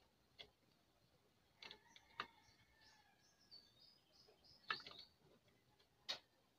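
Near silence broken by a handful of small, scattered clicks and taps, the loudest just before five seconds in. They come from a replacement electrolytic capacitor being handled and its stiff leads pushed into the circuit board.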